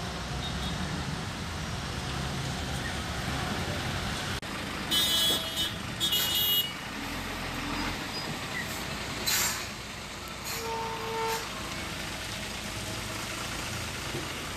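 Road traffic at a jammed railway level crossing: vehicle engines idle and run in a steady rumble. Two short high-pitched horn blasts sound about five and six seconds in, and a lower horn about ten and a half seconds in.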